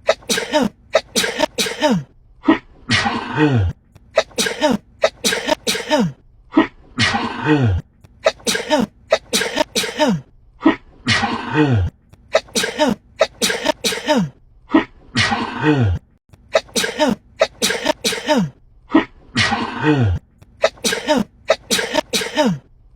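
A woman sneezing uncontrollably in a looped sneeze attack. Each cycle is a drawn-out 'ah' falling in pitch, then a rapid run of sharp sneezes, repeating about every four seconds.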